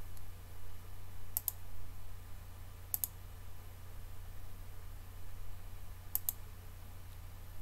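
Three quick double clicks of a computer mouse button, spaced a few seconds apart, over a steady low hum.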